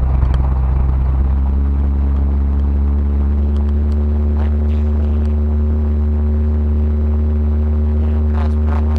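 Ford Ranchero GT's 5.8-litre 351 Windsor V8, with a freshly rebuilt carburetor, running steadily as a loud low drone; a steady higher hum joins it about a second in and holds.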